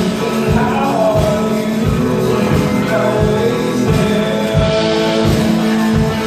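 Live rock band playing a worship song: electric guitars and drum kit with a steady kick drum about twice a second, and a voice singing over it.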